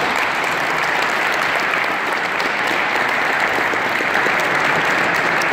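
Applause: many people clapping steadily and without a break.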